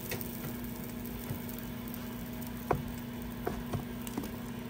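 Rendered beef fat and drippings sizzling in a hot pan after searing, with scattered pops and ticks and a few sharper pops past the middle.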